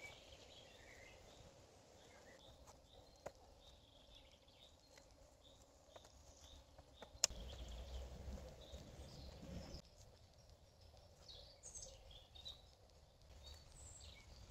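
Quiet woodland ambience with faint bird chirps and a few soft knocks. About seven seconds in, a sharp click, then a low rumble for a couple of seconds.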